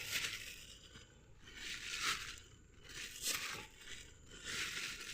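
Rustling and crunching of dry brush and plant debris in four separate swishes, each a second or so apart.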